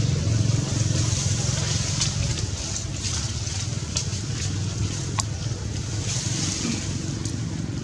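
Low rumble of a distant engine, fading over the first two or three seconds and then running on more quietly, with scattered faint clicks.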